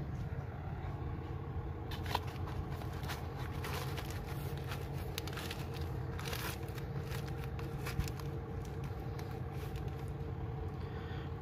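A 2001 Audi TT's turbocharged four-cylinder engine running steadily, a low even rumble, with many short sharp clicks and crackles over it from about two seconds in.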